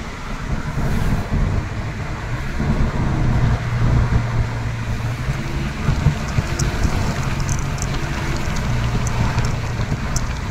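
A car driving on a wet road, heard from inside the cabin: a steady low rumble of engine and tyres with a hiss of road noise, and a few light ticks in the second half.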